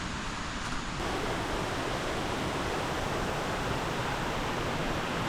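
Steady rush of flowing water, becoming fuller and a little louder about a second in.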